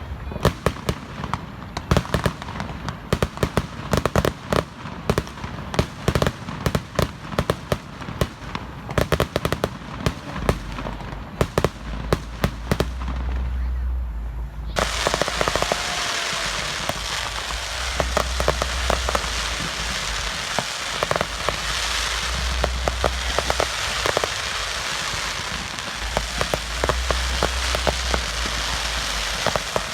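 Fireworks going off in a rapid, dense string of bangs and crackling pops. About halfway through, the sound changes abruptly to a steady hiss with a few scattered pops.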